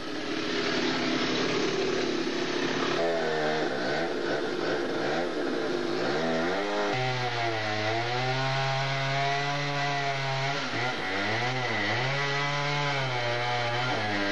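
Chainsaw running at high revs as it cuts into the trunk of a very large dead tree. Its pitch swings up and down, then holds steadier from about seven seconds in.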